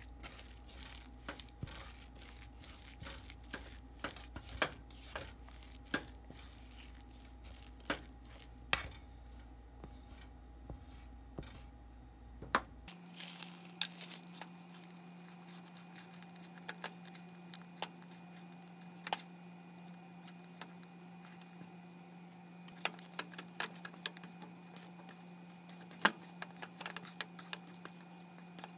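Spatula stirring crumbly glutinous rice flour dough in a stainless steel bowl, scraping and knocking against the metal with crackly rustling. About halfway through this gives way to hands kneading and squeezing the dough, with scattered sharp clicks against the bowl.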